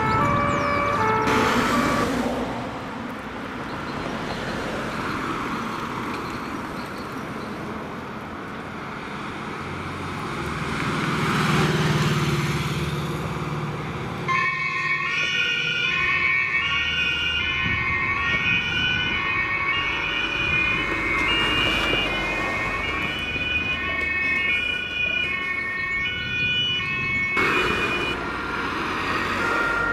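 Two-tone sirens of German fire brigade and THW emergency vehicles, each stepping back and forth between two pitches, with the engine and tyre noise of passing traffic. For the first half mainly a vehicle passing is heard, loudest a little before the middle. From about halfway several two-tone sirens sound at once, overlapping at different pitches.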